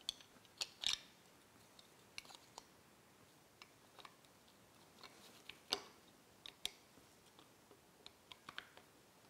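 Faint, scattered clicks and taps of small plastic parts as a Raspberry Pi Zero with a Flick Zero board is pushed into its plastic case and handled on the tabletop. A few sharper clicks come about a second in and near six seconds in.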